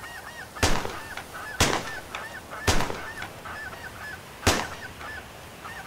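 Four shotgun shots, unevenly spaced about a second or two apart, fired at snow geese over a flock. Between and under the shots, a constant chatter of high, yelping snow goose calls.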